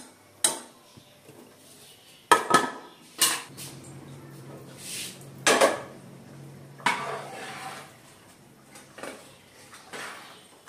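A steel perforated ladle clinking and scraping against an aluminium pressure cooker as boiling biryani rice is stirred: several irregular sharp clinks with short scrapes between them.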